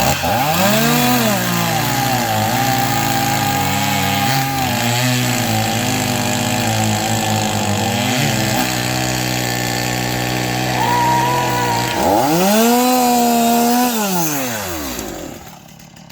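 Two-stroke chainsaw engine revving up to full throttle and running hard through a log, its pitch sagging briefly a few times under load. About twelve seconds in it revs up again, then winds down and drops out near the end.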